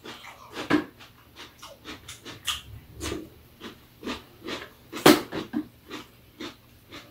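Close-up mouth sounds of people eating: irregular chewing and lip-smacking, with spoon and chopsticks clicking against bowls and plastic containers; the sharpest click comes about five seconds in.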